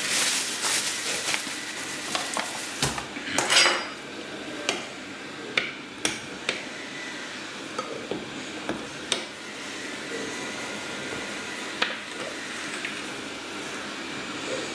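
Rye flour pouring from a paper bag into a glass bowl, then a thump and rustle about three seconds in. After that a metal utensil stirs the flour into the wet mix, clinking now and then against the glass bowl.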